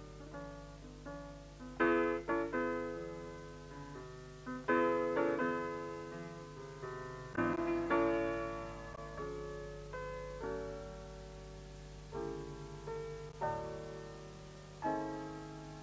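Background solo piano music: slow chords struck and left to fade, with louder chords about two, five and eight seconds in. A steady low hum runs underneath.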